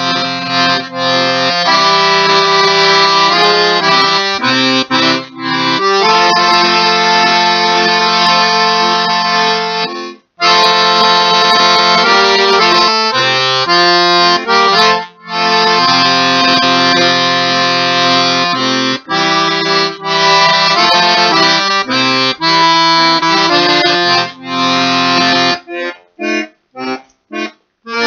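Accordion playing a slow country ballad solo, melody over sustained bass chords. There is a brief break about ten seconds in, and near the end the bass drops out and the notes come short and detached with gaps between them.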